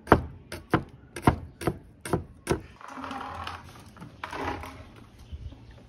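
A kitchen knife chopping garlic on a wooden board: a run of sharp knocks, about three a second, for the first two and a half seconds. Two short patches of softer noise follow.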